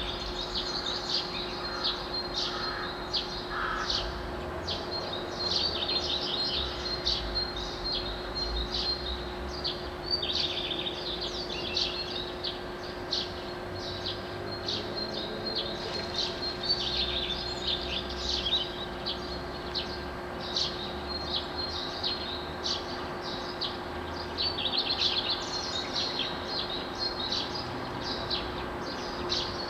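Songbirds singing at dawn: many quick chirps and trills overlapping without a break. A faint steady low hum and rumble run underneath.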